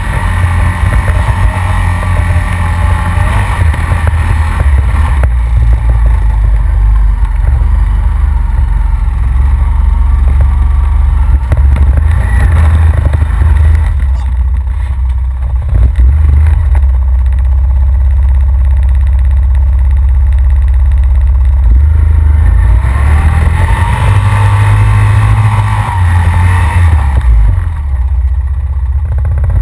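Honda Rancher ATV's single-cylinder four-stroke engine running as the quad rides a rough dirt trail, with a heavy low rumble throughout. The engine note is busier for the first few seconds and again a little past two-thirds of the way in, as the rider gives it more throttle.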